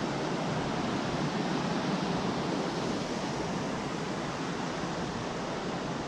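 Fast mountain stream rushing over rocks: a steady, even rush of water.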